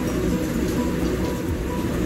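Background music with a heavy low end, playing steadily.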